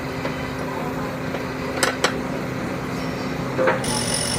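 Steady mechanical hum with two sharp metallic clinks close together about two seconds in and another near the end.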